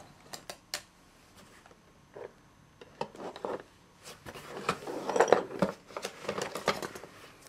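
Small objects clattering and rustling as a hand rummages through a box of junk-drawer odds and ends: a few sharp clicks near the start, then a longer busy stretch of rattling and rustling from about three seconds in.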